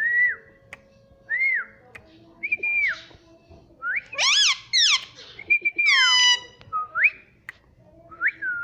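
Indian ringneck parrot whistling a series of short rising-and-falling whistles, about seven in all. A couple a little after the middle are richer and sweep steeply.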